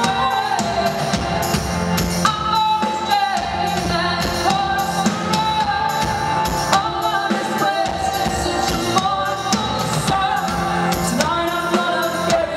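A woman sings lead over a live rock band with drums, electric guitar, harp and keyboards, loud and steady, recorded from the audience.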